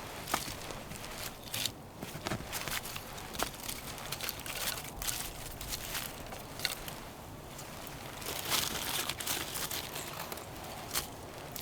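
Irregular crunching and rustling: footsteps in snow mixed with the swish of winter clothing and gear.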